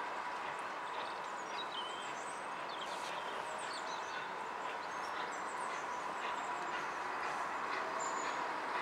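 Small birds chirping now and then over a steady hiss with a faint steady tone, growing slightly louder near the end as a steam tank engine approaches.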